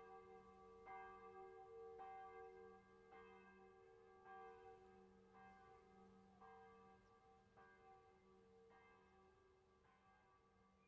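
A bell tolling faintly, struck about once a second, each stroke ringing on into the next. The strokes slowly grow quieter.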